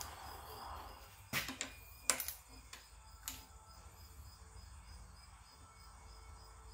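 A handful of sharp, irregular metal clicks and clinks as a socket wrench is picked up and its socket fitted onto the camshaft sprocket bolt, over a faint low steady hum.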